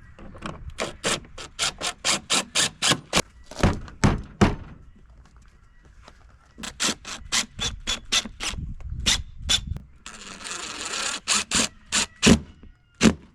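Sharp clicks and knocks, about three or four a second in several runs, from tools and plastic panels as an inverter generator's housing is put back together, with a short scraping rasp a little after ten seconds.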